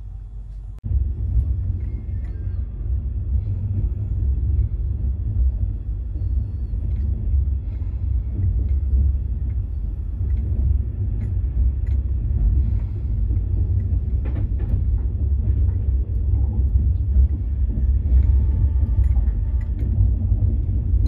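Low, steady rumble of a running passenger train heard from inside an LHB 3E coach, with faint scattered clicks over it; it begins abruptly about a second in.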